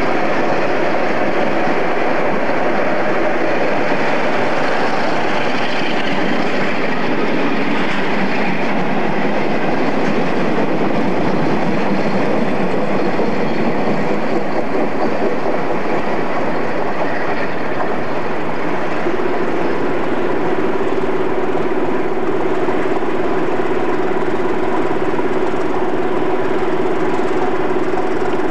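Diesel-hauled freight train passing at speed, the locomotive's engine and the wagons running by in one steady, loud noise. A steady hum joins in about two-thirds of the way through.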